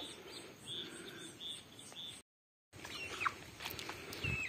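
Quiet rural outdoor ambience: insects chirping in an even high pulse, about four a second, with faint bird calls. After a short dropout about two seconds in, chickens calling in a farmyard with short falling cheeps and one held call.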